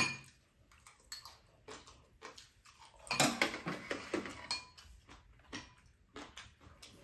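Chopsticks and spoons clinking against bowls and a metal tray during a meal: a sharp clink right at the start, then scattered small clicks. About three seconds in comes a louder stretch of eating noise lasting over a second.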